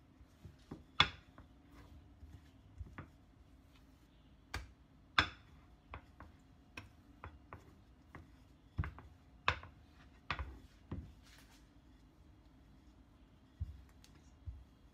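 Wooden rolling pin working dough on a plastic cutting board: irregular sharp knocks and clicks as the pin and board bump and shift, loudest about a second in, around five seconds and between nine and eleven seconds, over a faint steady hum.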